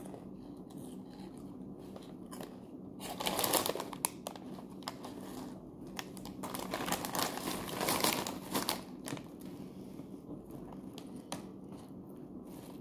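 A foil-lined plastic snack bag crinkling as it is handled and held open. The crinkling comes and goes, loudest about three seconds in and again for a few seconds in the middle.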